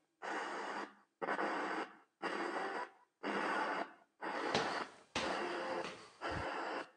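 Ghost Portal spirit-box device sounding a steady run of static bursts, about one a second, each cut off by a short gap, as it scans for spirit voices.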